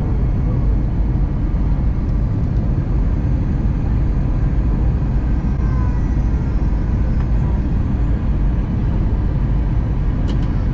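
Steady low rumble of a jet airliner's cabin in flight on descent, with a couple of faint clicks near the end.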